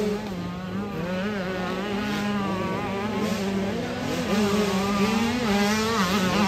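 Several dirt bike engines revving up and down, their pitch rising and falling unevenly as the bikes labour up a muddy hill climb.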